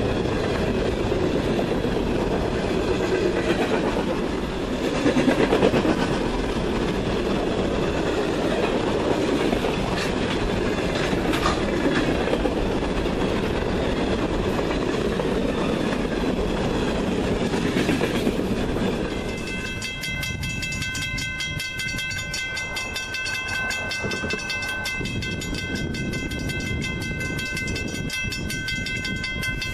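Freight train of refrigerated boxcars rolling past, its wheels clattering and rumbling on the rails. About two-thirds of the way through this gives way to a train horn sounding one long, steady multi-note chord that lasts to the end.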